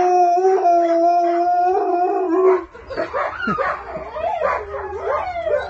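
Wolfdogs howling: one close wolfdog holds a long, steady howl that stops about two and a half seconds in, then quieter wavering howls that rise and fall in pitch follow.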